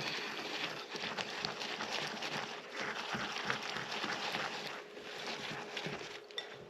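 Chopped toasted pumpkin seeds being stirred into flour, salt and baking soda in a mixing bowl: a continuous irregular scraping and ticking of the utensil and seeds against the bowl.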